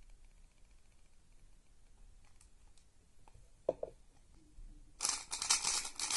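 A freshly lubed YuXin Little Magic 3x3 speed cube being handled and turned. A few light clicks and one sharper click come first, then about a second of rapid turning near the end, the layers clicking and rattling.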